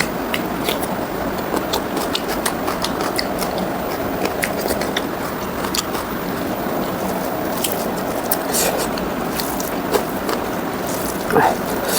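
Close-miked eating: wet chewing and lip-smacking clicks from a mouthful of pork ribs and rice in gravy, over a steady background noise. A short voiced mouth sound comes near the end.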